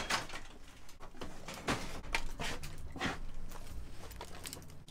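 Handling noises as a costume's gloves and fabric belt are picked up and moved: irregular knocks, clicks and rustles, a few each second.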